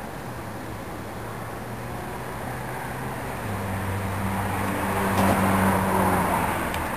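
A low engine hum that grows louder, peaks about five to six seconds in, and then eases off.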